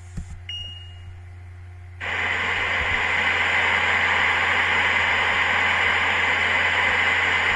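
Steady hiss of static noise that starts suddenly about two seconds in and holds to the end, over a low electrical hum. Just before it there is a faint click and a brief high beep.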